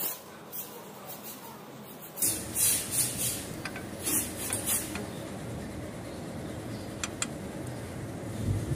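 Hand-handling noise of engine parts: scattered rubbing and scraping with short clicks, busiest between about two and five seconds in, and a few sharp clicks near the end over a steady low background hum.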